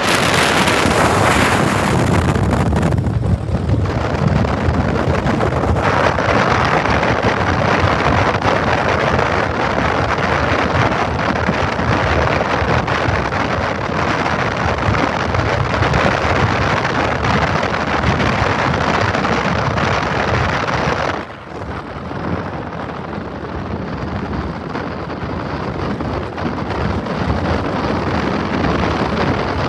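Heavy wind noise buffeting the microphone over a steady rumble of vehicle movement. It eases somewhat about 21 seconds in.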